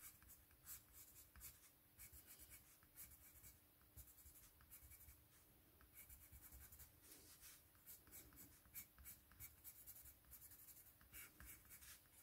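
Faint scratching of a Spectrum Noir coloured pencil shading on white card, quick short strokes coming in bursts.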